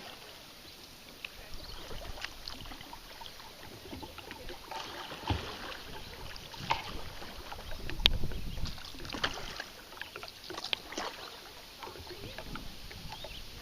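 Kayak paddling on a river: paddle blades dipping and dripping, with irregular small splashes, and a sharp knock about eight seconds in that is the loudest sound.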